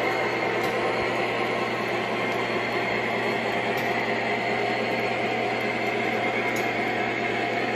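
O scale model trains running on the layout's track: a steady rolling rumble of wheels and motors with a low steady hum underneath.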